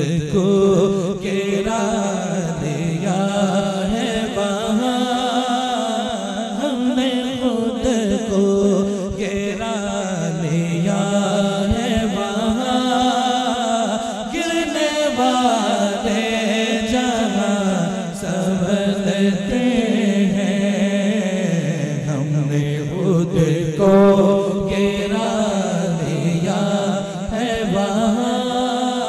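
A man's voice singing a naat (devotional Urdu chant) in long held notes that slide and step in pitch, with no breaks for speech.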